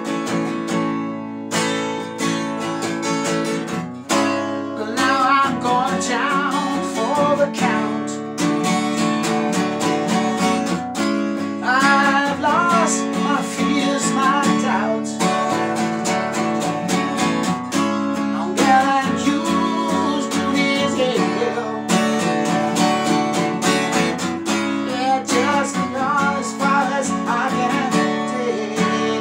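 Acoustic guitar strummed steadily, with a rack-held harmonica playing a solo over it from about five seconds in, its notes bending and wavering.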